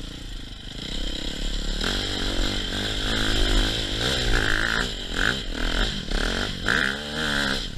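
KTM 450 four-stroke single-cylinder dirt bike engine under load off-road, its pitch rising and falling repeatedly as the throttle is opened and closed.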